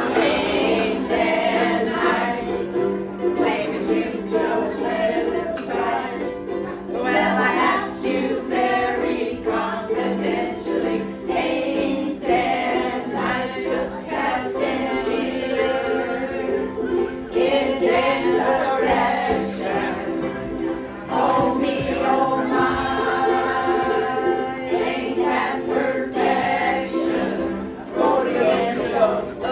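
A group of voices singing a song together to strummed ukuleles.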